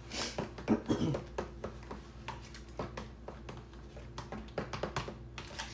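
Spoon stirring a thick mayonnaise dressing in a plastic container: a run of soft, irregular clicks and scrapes.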